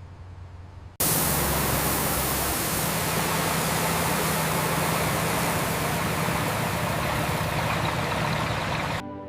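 A steady, even rushing noise with a faint low hum under it. It starts abruptly about a second in and cuts off just before the end.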